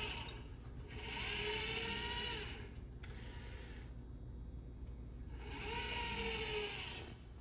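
Robot arm's motors whining through a series of programmed moves, each run lasting a second or two with short pauses between. The pitch rises and falls as each move speeds up and slows down.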